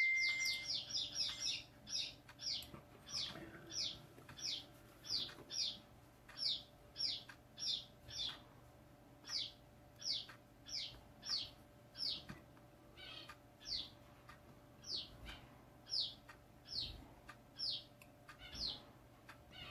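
A small bird chirping over and over, each chirp a short high note falling in pitch, in a quick run at first and then about one or two a second.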